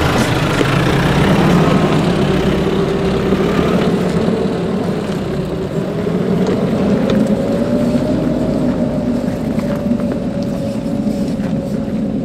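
Nissan Navara 4x4 ute driving slowly past and climbing away up a rocky dirt track: a steady engine note with a few small clicks from tyres on loose stones, the engine rising a little in pitch midway and growing slightly fainter toward the end.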